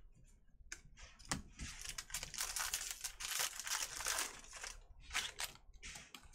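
A trading-card pack's wrapper being torn open and crinkled for about three seconds, with a few sharp clicks from the cards being handled.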